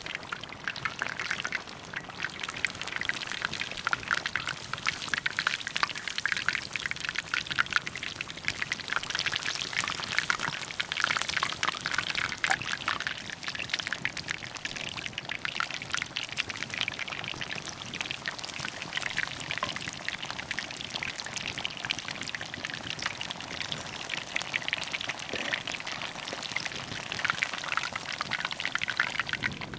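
Tempura-battered ostrich heart slices deep-frying in hot oil in a cast-iron skillet: a steady, dense sizzling and crackling of bubbling oil.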